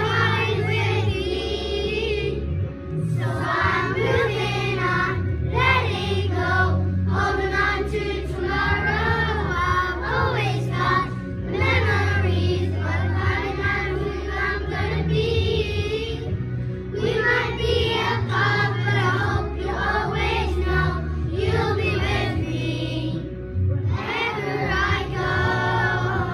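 A group of young children singing a slow song together in phrases, over a steady instrumental backing track.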